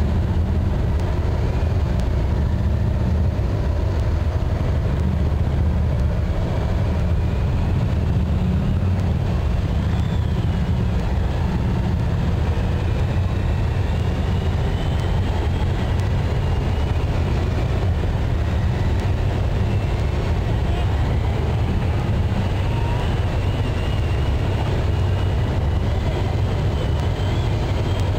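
A procession of police motorcycles riding past in lines, their engines making a steady, continuous low rumble.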